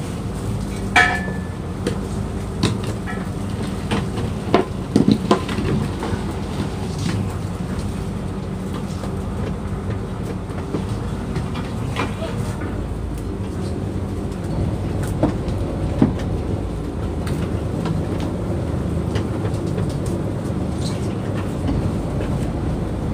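Fishing boat's engine and net hauler running steadily with a low hum, with scattered clicks and knocks as lobster nets are pulled in and handled on deck.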